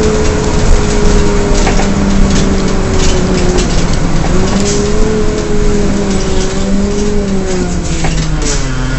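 Drivetrain howl of a 2009 Gillig Advantage transit bus (Cummins ISL diesel, Allison B400R transmission) under way, heard from inside the bus. The steady howl drifts slightly up and down in pitch with road speed and drops lower near the end, over engine and road noise.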